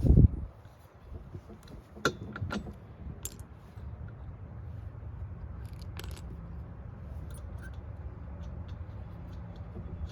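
A heavy thump, then a few scattered light metallic clicks and clinks of steel washers and wheel hardware being handled, over a steady low hum.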